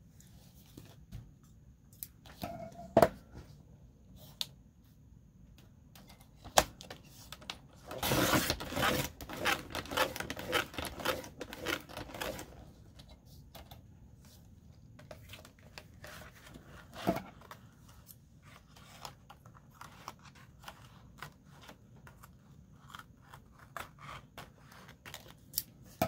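Collage paper being cut and handled: scattered sharp clicks and taps, with a longer run of rapid cutting and rustling about eight to twelve seconds in.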